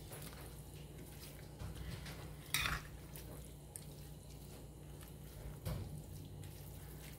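Metal spoon stirring cooked cabbage in a stainless steel pan, with two short clinks of the spoon against the pan, about two and a half seconds in and near six seconds. A faint steady low hum sits underneath.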